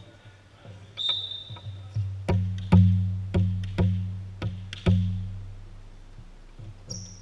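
A referee's whistle blows once for about a second. A volleyball is then bounced on a hardwood gym floor about six times, roughly twice a second, each bounce booming and ringing in the hall, as the server readies to serve.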